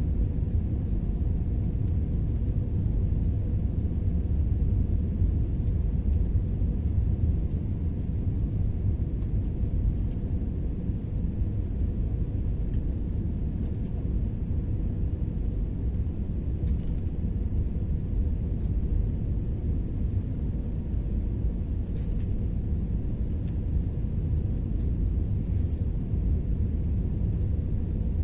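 Steady low rumble of a jet airliner's engines and rushing air, heard inside the passenger cabin during the descent, with a faint steady hum in it.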